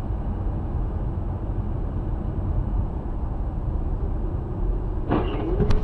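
Steady low rumble of road and engine noise inside a moving car, picked up by a dashcam. About five seconds in come a brief rising tone and a sharp click.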